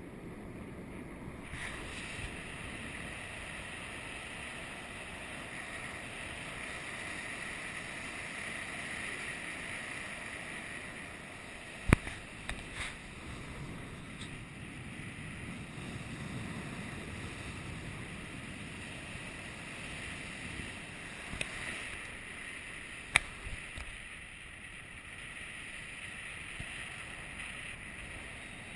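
Steady wind rushing over the microphone of a tandem paraglider in flight, with a few sharp clicks or knocks, the loudest about twelve seconds in and another near twenty-three seconds.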